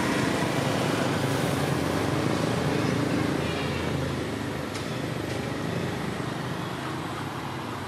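Motor vehicle engine running steadily with road-traffic noise, slowly fading away.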